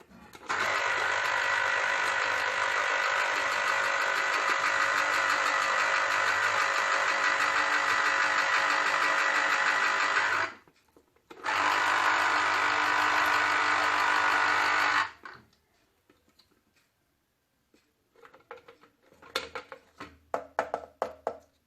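Electric citrus juicer running as a lemon half is pressed on it: a steady motor whir for about ten seconds, a short pause, then about four seconds more. Near the end come a series of light clicks and knocks.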